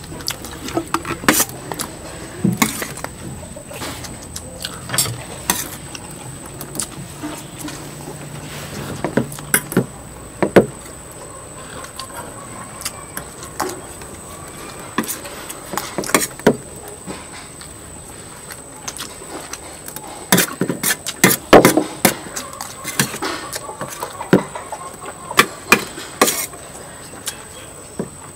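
Eating utensils clinking and knocking against plates and bowls in scattered, irregular clicks, over a faint steady high whine.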